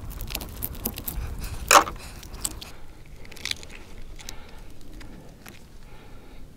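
A knife blade working in a block of ballistic gelatin to dig out a fired bullet: small clicks and scrapes, with one louder sharp scrape just under two seconds in.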